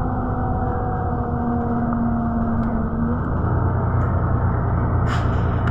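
Steady running rumble heard from inside a moving vehicle, with a faint steady tone that stops about halfway through and a low hum after it. A short knock comes near the end.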